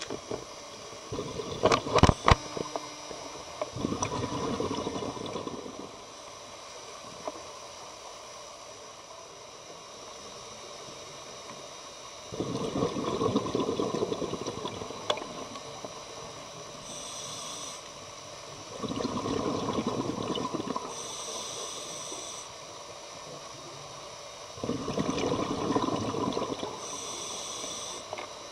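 Underwater bubbling and rushing noise coming in repeated bursts of two to four seconds, about every six seconds, each followed by a short higher hiss. A few sharp clicks about two seconds in are the loudest sounds.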